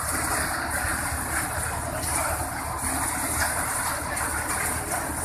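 Tractor-driven groundnut thresher running steadily while threshing groundnut plants, its machinery and the tractor's engine making one even mechanical noise.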